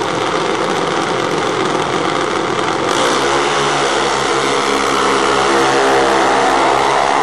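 Junior dragsters' small single-cylinder engines running at the start line, then about three seconds in the sound turns into a steady high engine buzz as the pair race down the strip.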